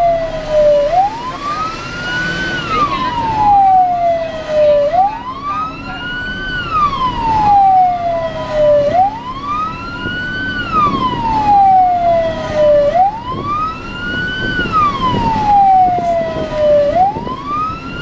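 Fire engine siren on a slow wail, each cycle rising for about two seconds and falling for about two more, repeating about every four seconds. Heard from inside a moving fire truck's cab, with a steady engine hum underneath.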